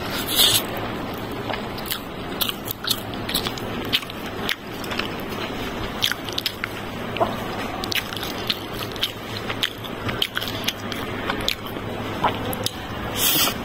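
Close-up eating sounds: fingers mixing and squeezing biryani rice on a plate, and chewing, with many small clicks and crunches. Two short hissy bursts come near the start and near the end.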